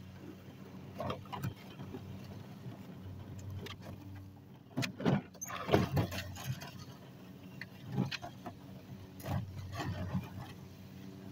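Hoover Spin Sweeper L1400 outdoor push sweeper rolling over a driveway, its spinning brushes sweeping up grass clippings with irregular clattering and scraping, loudest about halfway through. A steady low hum runs underneath.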